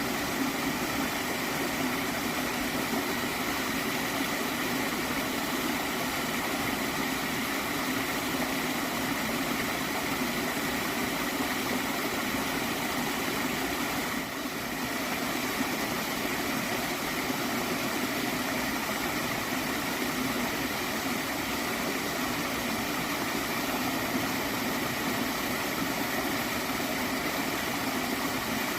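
Water stream flowing steadily with a gurgle, an even wash of sound with a brief slight dip about halfway through.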